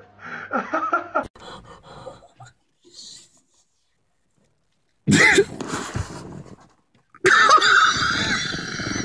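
A person laughing hard in loud, wheezing, cough-like bursts, starting about five seconds in and again about two seconds later. Before that, brief voices and a sharp knock in the first second or so.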